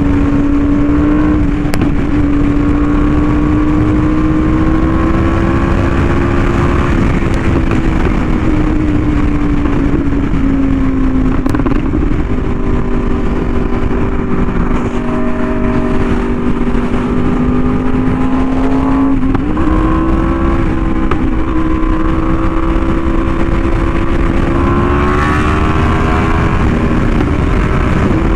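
Yamaha YZF-R1M's crossplane inline-four through an SC Project exhaust, running under way at a cruising pace. The note holds fairly steady, sagging and climbing gently a few times with the throttle.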